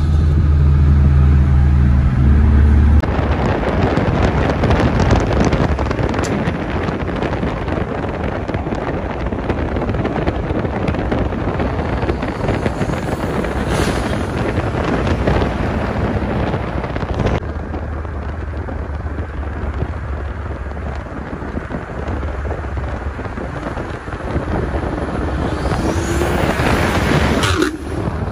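Car engine droning steadily, heard inside the cabin. About three seconds in it gives way to the loud, steady rush of wind and tyre noise from cars driving at speed, with a brief rise in engine pitch near the end.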